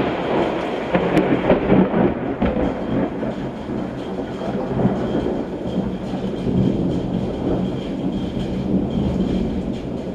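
Thunder: a sudden loud crack right at the start, then a long rolling rumble that slowly eases off.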